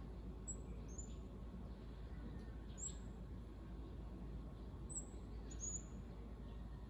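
Guaiabero, a small Philippine parrot, giving a handful of short, very high, thin chirps, some in quick pairs, over steady low background noise.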